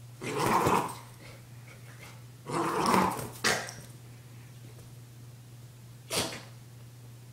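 Maltese puppy growling twice, each growl under a second long, while mouthing a plush toy; a single short sharp knock follows about six seconds in.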